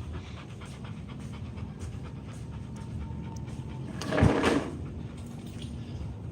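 A dog panting fast and steadily, tired out after a long spell of running and fetching. About four seconds in there is one brief, louder sound.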